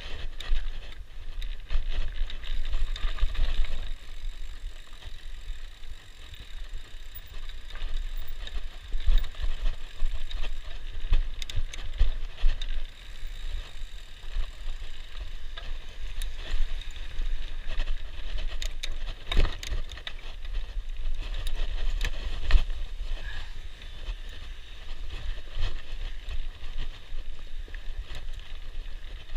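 Mountain bike riding down a dirt singletrack: tyres rolling over dirt and rocks, with the bike rattling and knocking over bumps and roots, and wind rumbling on the microphone.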